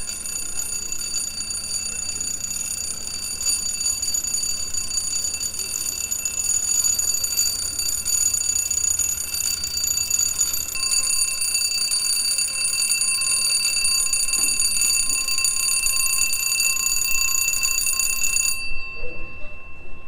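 Electric warning bell at a ship lock ringing continuously, signalling that the lock gates are moving. It stops abruptly near the end.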